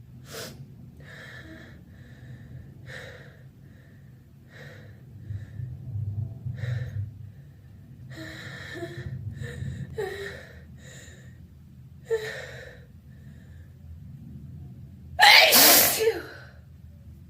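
A person's short gasping breaths as a sneeze builds, then one loud, wet, open, voiced sneeze about 15 seconds in.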